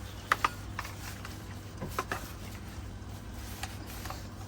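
Sharp clicks and knocks of hard plastic vacuum-cleaner parts being handled: two close together about a third of a second in, then a small cluster around two seconds in, with a low steady hum underneath.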